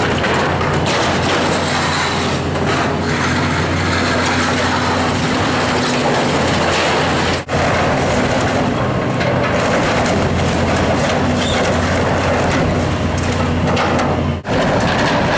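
Caterpillar hydraulic excavator's diesel engine running steadily under load while its bucket tears at and crumples sheet-metal roofing, a continuous clatter and crunching of metal and debris. The sound drops out briefly twice, about halfway and near the end.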